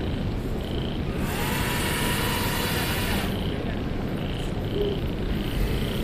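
Four-motor radio-controlled airboat's fan propellers whirring up about a second in and running at speed for about two seconds, a whine that rises and then holds as the boat pulls away across the water, over a steady low rumble.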